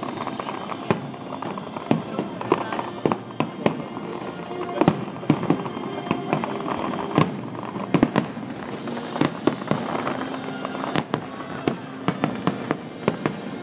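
Fireworks display: aerial shells bursting in a rapid, irregular series of sharp bangs, some louder than others, over a continuous rumble and crackle, with music playing underneath.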